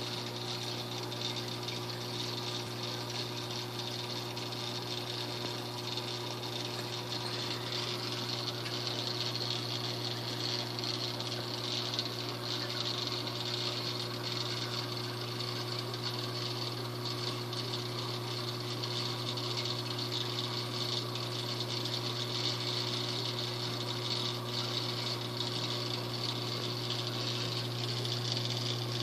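Saltwater aquarium pump running: a steady low electrical hum with the hiss of water being moved through the tank.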